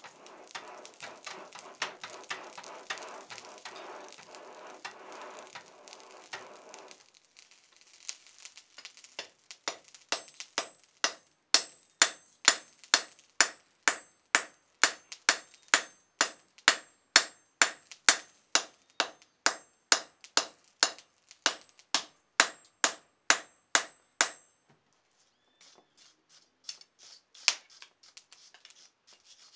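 Charcoal forge fire roaring and crackling for the first several seconds. Then a hand hammer strikes orange-hot steel on a block anvil in a steady rhythm of about two to three blows a second, each with a high metallic ring, for roughly fifteen seconds, stopping suddenly, followed by a few light taps near the end.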